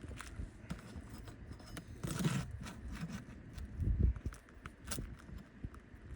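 Scrapes and knocks of hand work on asphalt roof shingles: scattered small clicks, a louder scrape about two seconds in and a dull thump about four seconds in.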